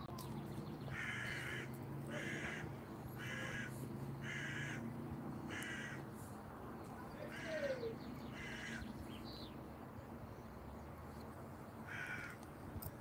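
A crow cawing repeatedly: five caws about a second apart, two more after a short pause, and a last one near the end.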